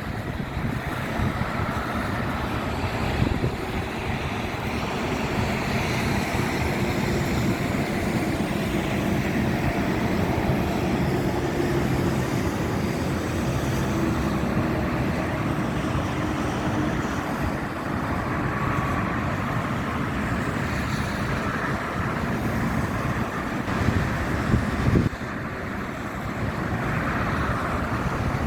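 Thunderstorm noise: a steady, low rumbling wash of wind and rain, with a couple of brief louder jolts about three seconds in and again around 24 to 25 seconds.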